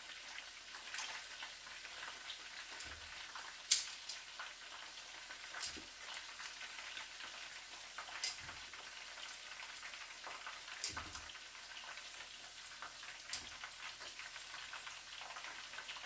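Chicken wings frying in hot oil in a frying pan: a steady sizzle with scattered pops and crackles, one sharp pop a little under four seconds in. The wings are nearly done, their skin starting to split.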